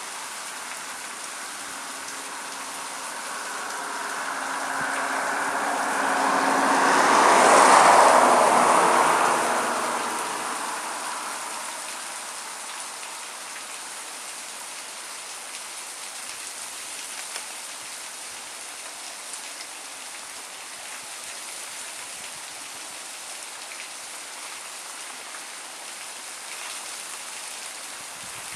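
Steady rushing noise of a waterfall. A louder sound swells up over a few seconds, peaks about eight seconds in, and fades away again.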